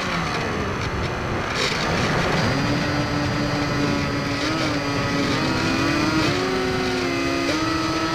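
Wind rushing over the onboard camera of a Firebird Stratos RC plane in flight, with the hum of its electric motors and propellers. About two seconds in, the motor tone comes up and wavers in pitch with the throttle, at times splitting into two close tones.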